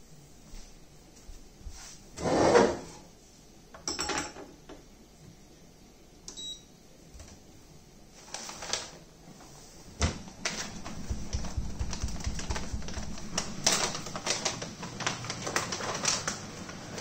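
Household handling sounds: scattered clicks and knocks as a cupboard or shelf overhead is reached into, then the crackling rustle of a paper coffee-bean bag being opened near the end, over a steady low hum that sets in about ten seconds in.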